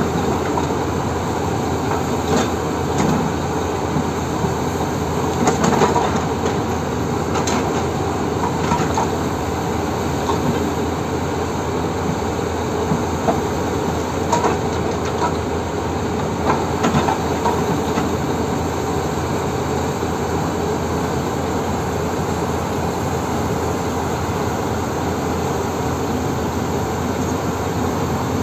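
Excavator-mounted hydraulic breaker hammering rock in a fast, steady pounding over the running excavator engine, with a few louder knocks in the first half.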